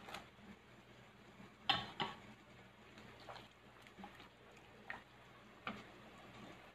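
A handful of faint, separate knocks and small splashes, the clearest about two seconds in: long green chili peppers dropped into a pot of broth, and a spoon touching the metal pot.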